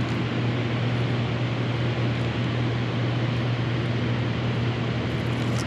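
Steady rushing of water at the foot of a dam, with a low, even hum underneath.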